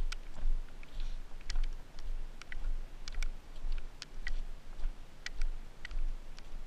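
Footsteps walking over gravel and mud, heard through a helmet-mounted GoPro: a dull thump about every half second, with scattered sharp clicks and crunches.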